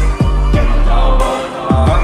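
Background music with a beat of deep bass kicks that drop in pitch.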